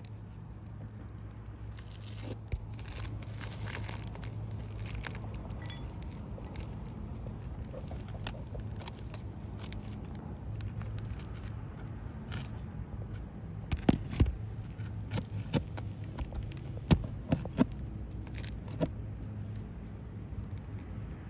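Flat pry bar worked under three-tab asphalt shingles, scraping and crackling as the shingles' sealed edges are broken loose. From about two-thirds of the way in come a dozen sharp knocks of metal on metal as the bar is struck with a hammer. A steady low hum runs underneath.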